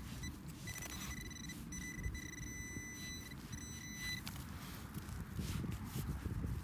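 Metal detecting pinpointer sounding a steady high-pitched tone, broken by a few short gaps, for about three and a half seconds as it is pushed into a dug plug of soil: the alert for a metal target. Wind rumbles on the microphone underneath.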